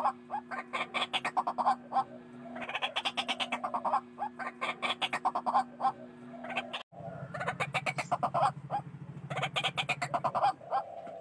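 White-breasted waterhens calling: bursts of rapid, harsh, repeated croaking notes, one burst after another. There is a sudden brief dropout just past the middle, where the recording is spliced.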